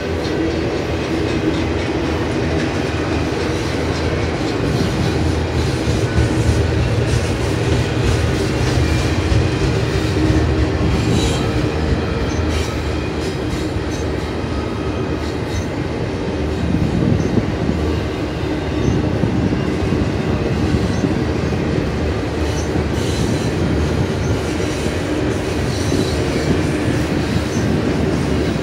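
Double-stack intermodal container well cars rolling past: a steady rumble of steel wheels on the rails, with faint steady tones and scattered clicks.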